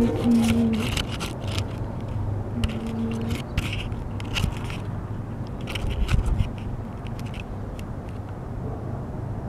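Close scraping and clicking against the camera as a rabbit nudges it on the dirt, in scattered clusters over the first seven seconds. A low horn-like tone sounds briefly at the start and again about three seconds in.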